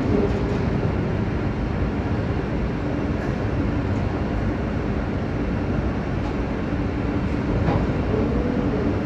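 Steady rumble of heavy factory machinery with a faint continuous hum and a few faint clicks and knocks.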